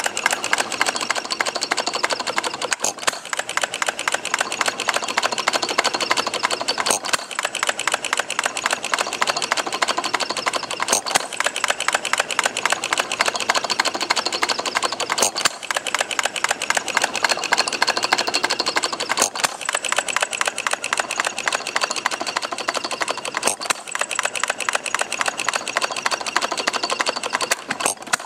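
Miniature 2.22 cubic inch bar-stock hit-and-miss engine running steadily: a fast, even clatter of clicks with a stronger stroke every four seconds or so.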